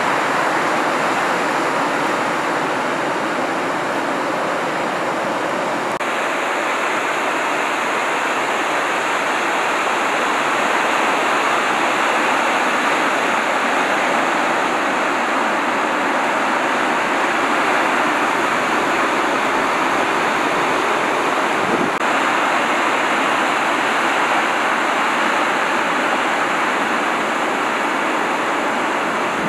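Ocean surf breaking and washing in: a steady rushing noise of waves. Its character shifts abruptly twice, about six seconds in and again about twenty-two seconds in.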